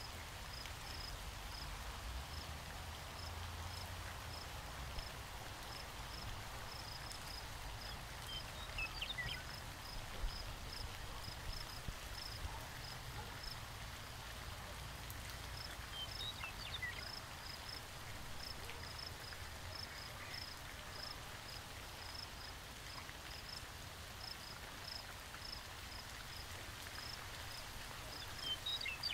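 Faint outdoor nature ambience: a cricket chirping in short high pulses over a soft hiss, with three brief descending bird calls.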